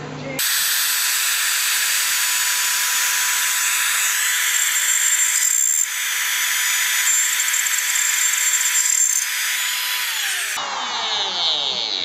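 Compact router running at speed with a steady high whine as it cuts into a wooden board. Near the end its motor winds down, the pitch falling.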